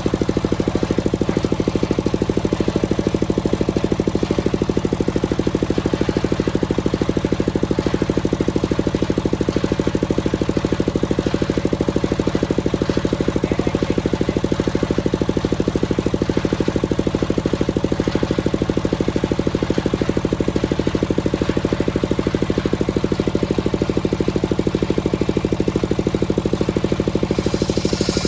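Large circular sawmill blade ripping lengthwise through a teak beam, over the steady, fast-pulsing run of the engine that drives it. Near the end the sound turns brighter and higher as the blade comes through the end of the beam.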